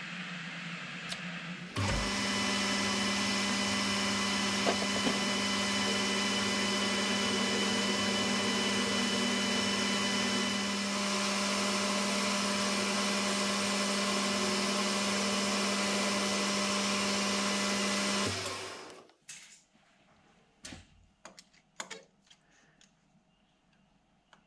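Metal lathe switched on and running steadily, a strong motor hum with a whine over it, while a 3/8-inch three-flute end mill is fed into the spinning piston blank. After about sixteen seconds it is switched off and spins down quickly, followed by a few light clicks.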